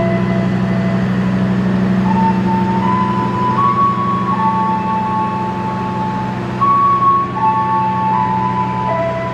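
Passenger train coaches rolling past with a steady low rumble, while background music plays a melody of held notes that step up and down about once a second.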